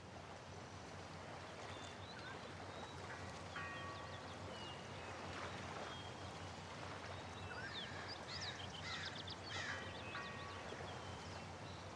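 Quiet outdoor lakeside ambience: a steady soft hiss with birds calling in short chirps and quick whistled glides, busiest past the middle.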